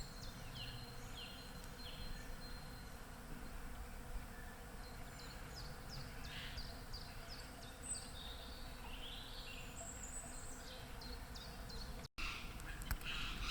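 Woodland birdsong: several small songbirds repeating short, high, falling notes and chirps over a steady low background rumble.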